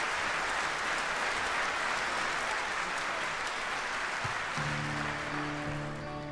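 Audience applauding in a concert hall, encouraging a singer who has faltered. The applause thins toward the end as instruments come back in with a sustained chord about four and a half seconds in.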